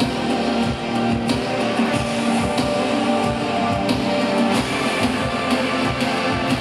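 A live band playing an instrumental passage with no singing: sustained guitar and keyboard-like notes over a drum kit keeping a steady beat.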